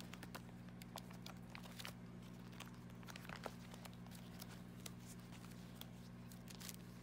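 Plastic sheet protectors and photo-card sleeves in a ring binder crinkling and rustling as pages are turned and handled, in faint scattered crackles over a steady low hum.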